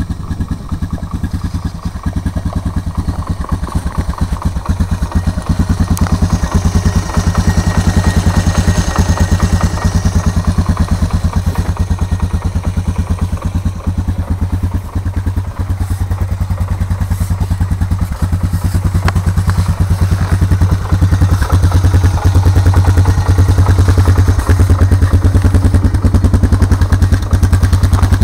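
2004 Honda Recon ES ATV's single-cylinder engine idling cold with a steady, even pulse and a noticeable knock. It gets a little louder about two-thirds of the way in.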